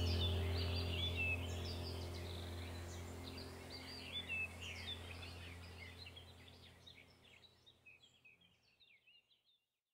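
Background soundtrack of a low steady hum with bird chirps over it, fading out to silence near the end.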